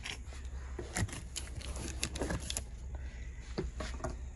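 A large cardboard shipping box being handled: scattered light taps, scrapes and rustles of cardboard, a few each second, over a low steady hum.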